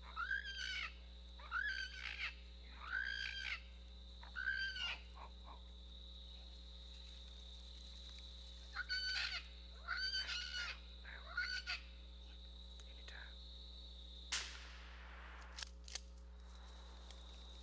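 Coon distress blown on an MFK mouth-blown diaphragm call, played back over loudspeakers: squalling calls that rise and fall in pitch, repeated about every second and a half, a run of four, a pause, then three more. About 14 seconds in comes a single sharp crack of a shot with a ringing tail.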